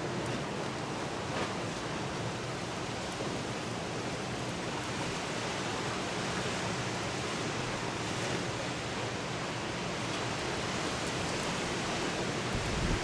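Very strong gusty downburst winds from a dying thunderstorm, a steady, even rushing noise.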